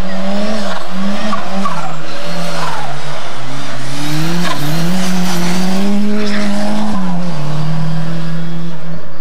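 Renault 5 rally car's engine at full race revs through a tight bend, the revs climbing and dropping repeatedly with throttle and gear changes, tyres squealing. About seven seconds in, the engine settles to a steadier, lower note as the car pulls away.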